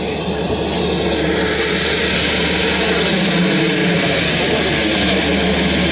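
Single-engine turboprop jump plane, a Cessna Caravan, running on the ground: a loud, steady propeller and engine noise that grows louder about a second in.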